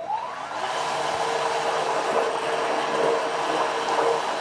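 Small electric motor of an RC model boat driving a 3D-printed three-blade propeller (25 mm diameter, 28 mm pitch) underwater at a steady test throttle: a quick rise in pitch at the start, then a steady whine over a rushing churn, drawing about 4.3 A for about 144 g of thrust.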